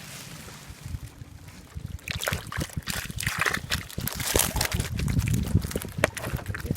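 Water sloshing and splashing unevenly, with many short knocks and clicks mixed in, busier from about two seconds in.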